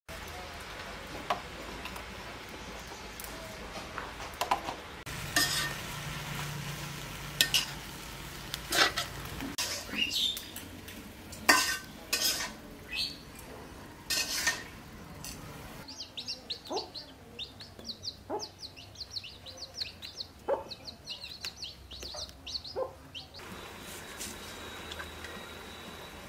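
A metal spatula stirs leafy greens in a black iron wok and clanks irregularly against the pan, over a faint sizzle. Later come many quick, light ticks.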